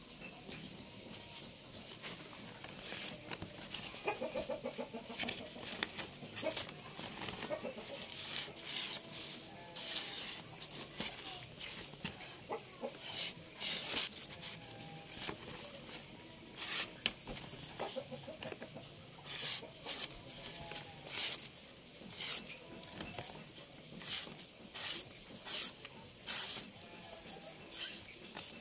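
A sheet of paper being slit again and again with a sharp golok (machete) blade: a run of short, crisp cutting and rustling sounds, a common test of an edge's sharpness. Chickens cluck in the background.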